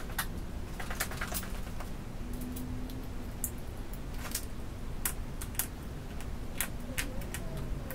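Irregular light clicks and taps from footsteps and small objects being handled, with a faint steady hum underneath.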